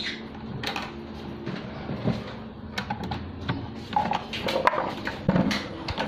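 Scattered light knocks and clicks of handling among wooden nest boxes and wire cages, over a low steady hum.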